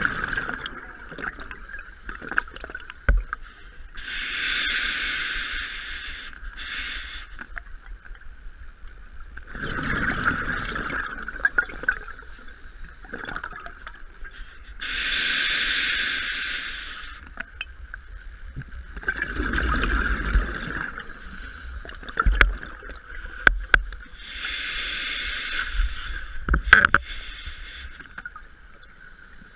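Scuba diver breathing through a regulator, heard underwater: slow hissing inhales alternating with gurgling bursts of exhaled bubbles, about every five seconds, with a few sharp knocks of gear in between.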